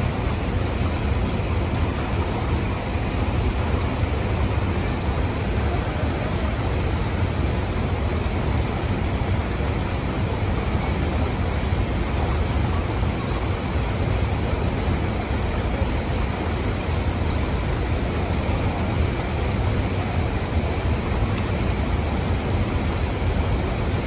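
Shallow river water rushing steadily over rocks: an even, unbroken noise with a strong low rumble.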